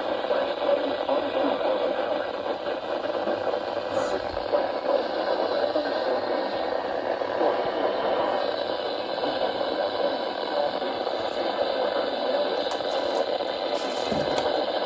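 Steady radio static from a weather-band receiver that cannot pick up the station it is tuned to. The hiss is confined to a mid band and holds level throughout.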